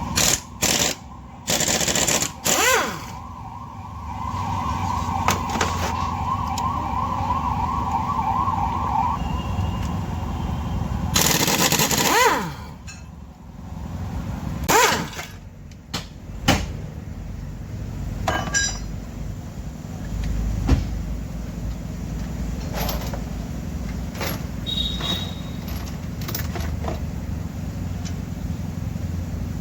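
Car workshop sounds while an engine is being taken apart: a steady low hum, several loud hissing bursts and scattered metal clicks and knocks of tools. A warbling siren-like tone sounds for a few seconds near the start.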